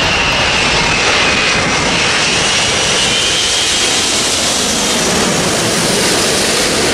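Korean Air Airbus A380 on final approach passing low overhead, its four Engine Alliance GP7200 turbofans making a loud, steady jet roar with a high whine over it.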